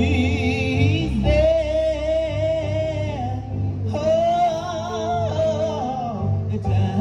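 Gospel praise music: a singer holds two long notes with vibrato, about a second in and again about four seconds in, over sustained chords and bass played on a Roland RD-300SX digital stage piano.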